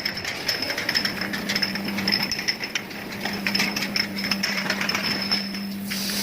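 HYWB-100F automatic drum-type bottle rinsing machine running: a steady low motor hum and a high whine under continual irregular clicking and rattling.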